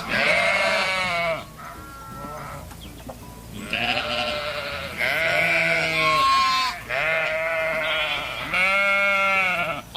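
Bighorn sheep bleating, about six long quavering bleats one after another, the second one quieter.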